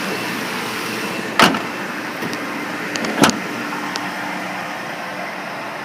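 Chevrolet Avalanche V8 engine idling steadily just after starting, heard as an even running hum, with two sharp knocks about a second and a half apart.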